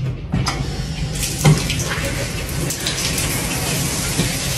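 Shower running, water spraying steadily into a tub, with a couple of short knocks, the loudest about a second and a half in. The water sound cuts off suddenly at the end.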